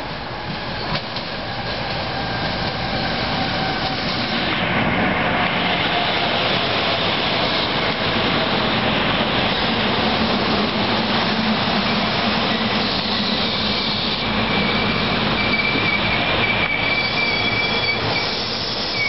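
SEPTA GE Silverliner IV electric multiple-unit commuter train pulling into the station, its wheels running on the rails and growing loud as the cars come alongside. In the second half a thin high squeal sets in as the train slows to stop.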